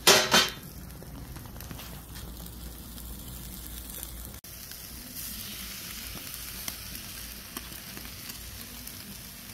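Chicken leg quarters sizzling on a charcoal kettle grill: a steady hiss. Right at the start there are two quick, loud bursts of noise.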